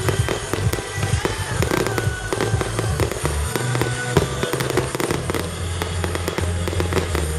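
Fireworks display: aerial shells bursting with many rapid sharp cracks, over music with a low bass.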